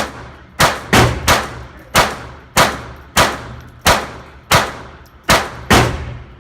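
A firearm fired about ten times in steady succession, emptying a magazine, each shot a sharp crack with a short ringing tail.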